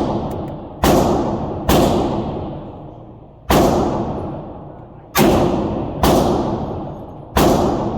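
.45 ACP pistol fired six times at an uneven pace, about a second or more between most shots. Each report is sharp and followed by a long echo that fades over about a second.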